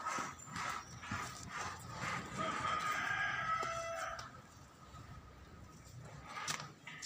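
A single long animal call, held for about two seconds, starting about two seconds in, over scattered light knocks.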